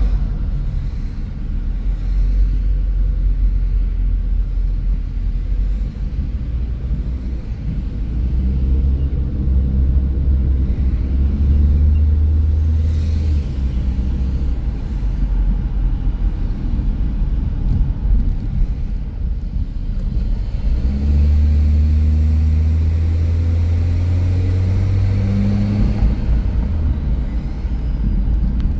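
A car being driven, with a steady low rumble of engine and road noise. The engine note grows louder and climbs slightly twice, about a third of the way in and again past the two-thirds mark, as the car speeds up.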